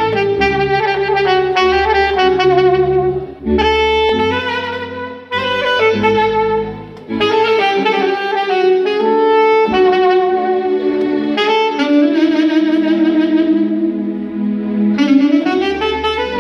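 Saxophone playing a melody with vibrato over a backing accompaniment with a low bass line; the phrases break off briefly a few times.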